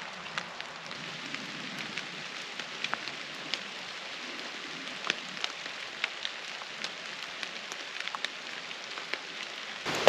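Steady rain falling, with individual raindrops ticking sharply several times a second over an even hiss.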